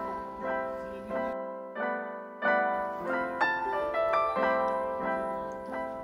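Background instrumental music: a gentle melody of struck notes that ring and fade, about one or two new notes a second.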